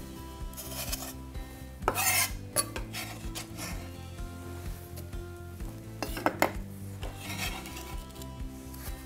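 Knife blade scraping across a bamboo cutting board, sweeping chopped vegetables off it in a few short strokes: about two seconds in, then around six seconds and again shortly after. Soft background music plays underneath.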